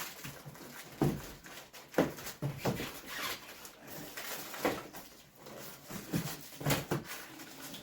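Cardboard box and packing being handled and opened: irregular knocks, scrapes and rustles, several sharper knocks about one, two and five seconds in.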